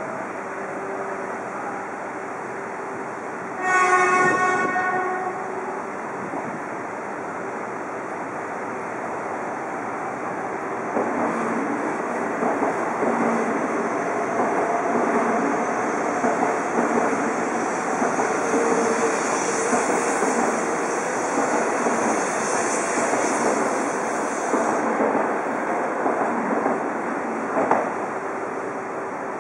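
A Shinkansen horn sounds once, a short high-pitched blast, about four seconds in. From about eleven seconds an E2 series Shinkansen runs along the platform with a steady rumble and whine, which fades a few seconds before the end.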